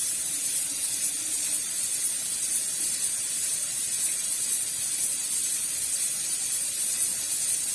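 Steady hiss of a butane gas burner under a pot of spiced water.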